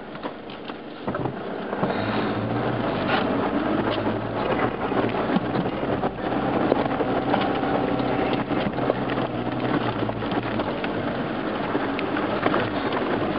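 Off-road 4x4 driving over a rough gravel track: the engine hums steadily and picks up about two seconds in, with frequent knocks and rattles from the body and the stones under the tyres.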